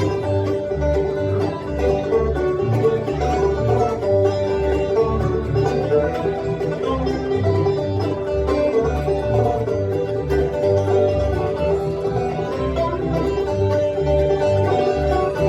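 Bluegrass band playing an instrumental tune live: banjo, fiddle, mandolin and guitar over a steady pulsing bass line, with the fiddle holding long notes.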